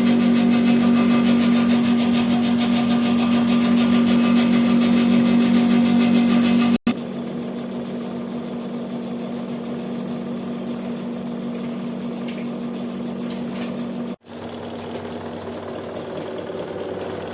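Split air conditioner running with an abnormal noise: a steady hum with a fast, even rattling flutter. It breaks off abruptly about seven seconds in and again about fourteen seconds in, each time resuming, somewhat quieter after the first break.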